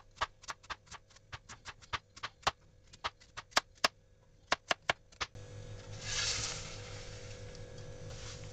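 Kitchen knife slicing a sweet potato into rounds on a plastic cutting board: a sharp chop each time the blade hits the board, about four a second in quick runs. The chopping stops about five seconds in, leaving a steady low hum with a brief hiss a second later.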